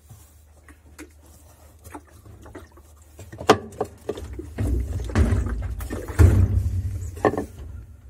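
Hand working the splined centre hub inside an Easy 15 kg washing machine's tub. A few sharp plastic knocks, the loudest about three and a half and seven seconds in, with a low rumble and rattling between them.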